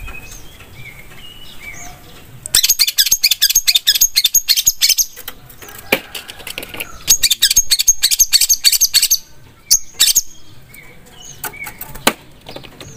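Long-tailed shrike (cendet) singing: a few short chirps, then rapid runs of harsh, high chattering notes a few seconds in and again midway, with scattered single calls between.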